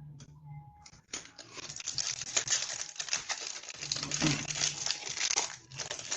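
Foil booster-pack wrapper being torn open and crumpled, a dense crinkling crackle that starts about a second in and dies down near the end.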